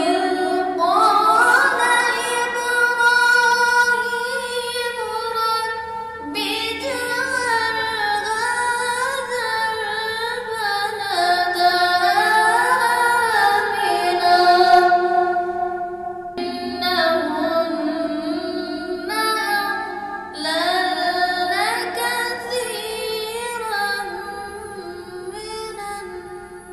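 Quran recitation (tilawat) in a melodic, chanted style. A single reciter's voice draws out long, gliding, ornamented notes in several long phrases, with brief breaks between them.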